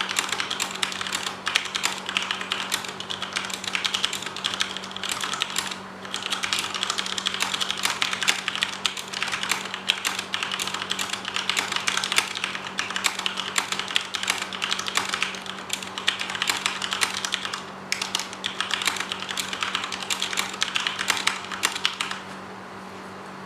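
Fast, continuous typing on a Corsair K70 RGB mechanical keyboard with Cherry MX Red linear switches: a dense clatter of keys bottoming out, with two brief pauses. The typing stops near the end.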